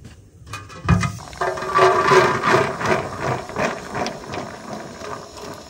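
A thump about a second in, then a dense rattling patter of pomegranate seeds poured into an aluminium pot, the metal ringing faintly under them. The rattling thins out towards the end.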